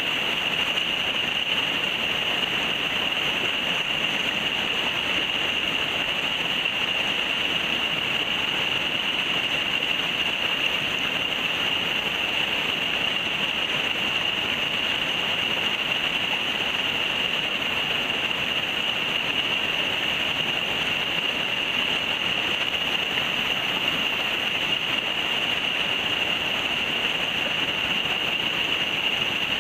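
Steady rushing of river water, with a steady high-pitched buzz on top of it.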